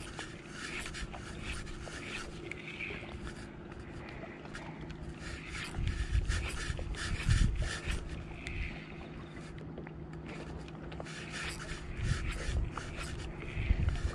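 Clothing rustle and rod-handling noise rubbing close to a body-worn camera as an angler jerks an eging rod, with scattered small clicks and a faint steady hum underneath. Heavier low thuds come about six to eight seconds in.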